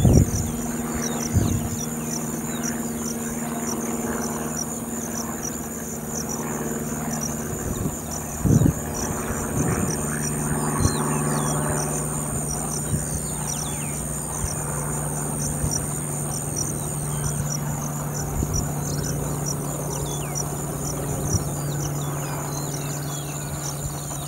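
Outdoor ambience dominated by a steady insect chorus, a rapid high pulsing chirp over a thin high steady buzz, with a low steady hum underneath. A few faint short bird chirps come through, and there is a brief low thump about eight seconds in.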